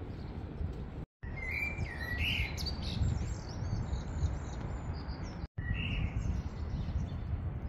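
Small songbirds chirping in short high calls in two spells, over a steady low outdoor rumble of wind noise and traffic. The sound drops out completely twice for a moment at edit cuts.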